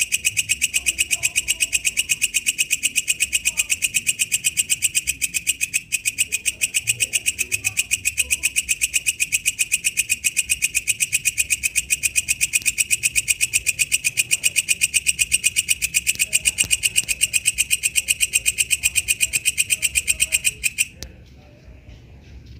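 Walang kecek katydid (bush cricket) calling: a loud, rapid, even train of high-pitched clicking pulses, about five a second. It stops abruptly near the end.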